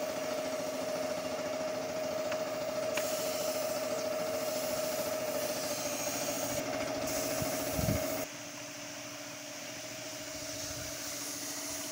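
Air compressor running with a steady hum, with the hiss of an air-fed paint spray gun starting about three seconds in and stopping briefly twice. About eight seconds in the hiss stops and the hum becomes quieter.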